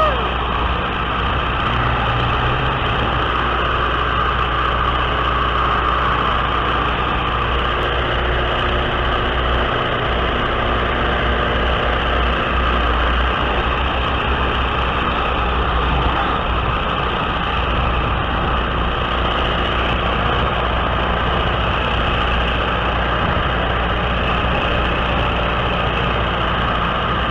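Biplane's piston engine running steadily in flight, mixed with rushing airflow over the on-board camera's microphone.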